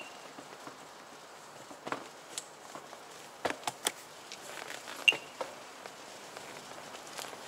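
Scattered sharp clicks and light knocks over a faint hiss, several close together near the middle: a bicycle rattling as it sets off and rolls slowly over cobblestones.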